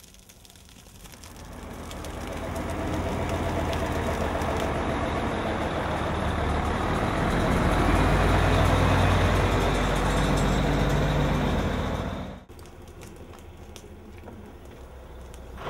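Fire engine running and driving past close by. Its engine sound builds over the first few seconds, is loudest in the middle, and cuts off abruptly about twelve seconds in.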